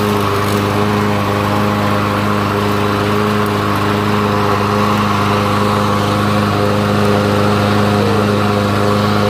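Troy-Bilt walk-behind lawn mower engine running steadily at a constant speed. It runs on after its clogged carburetor jet has been cleaned, a sign that fuel is reaching the engine again.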